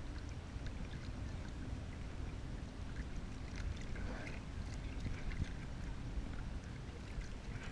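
Choppy seawater lapping and splashing against a kayak hull, over a steady low rumble.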